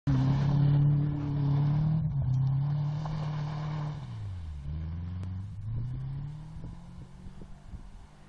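Subaru's flat-four engine revving hard as the car slides along a dirt track. About four and a half seconds in the revs drop sharply, then climb again as it accelerates away, fading into the distance.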